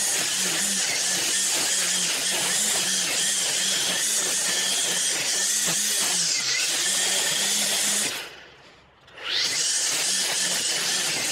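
String trimmer running at high speed and cutting long grass, its motor tone wavering slightly as the load changes. About eight seconds in, the sound falls away almost to nothing for about a second, then resumes.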